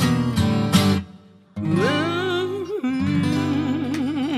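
Acoustic guitar chords strumming, stopping about a second in. After a brief pause a woman's voice scoops up into a long held note with vibrato, over guitar chords.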